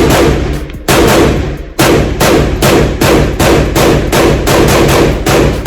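Gunfire from an AK-pattern 7.62x39 pistol: a few single shots about a second apart, then rapid fire of several shots a second from about two seconds in.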